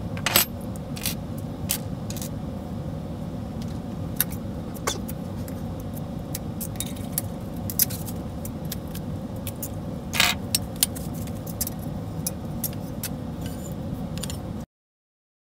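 Aluminium plates and small metal brackets clinking and tapping as they are handled and set down on a workbench: scattered sharp clicks, the loudest about half a second in and about ten seconds in, over a steady low hum. The sound cuts off suddenly near the end.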